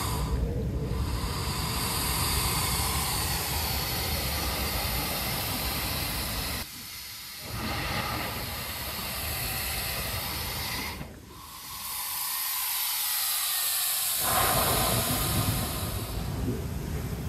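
Sea blowhole in lava rock exhaling: a long rushing hiss of air and spray forced up out of the hole. It drops away briefly about seven seconds in, then fades for about three seconds past the middle as the surge draws back, and rushes out again near the end.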